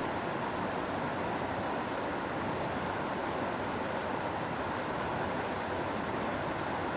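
River water rushing steadily. A faint high-pitched chirping, about four chirps a second, comes in briefly at the start and again in the middle of the stretch.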